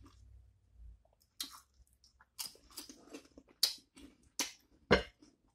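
Chip crunched while being eaten: a series of short, sharp crunches about a second apart.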